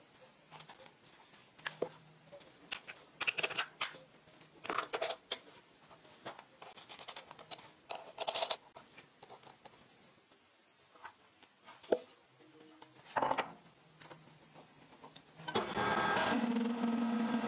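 Short scrapes and clicks of a machined metal tool-holder block and a bolt being handled. About two seconds before the end, a metal lathe starts in, running steadily with a few held tones as its chuck spins the workpiece against an indexable insert drill.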